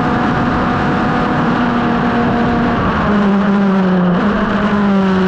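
Revolt 3P0 hillclimb racing car's engine running hard, heard onboard with wind and road noise. About three seconds in, the engine note steps down in pitch.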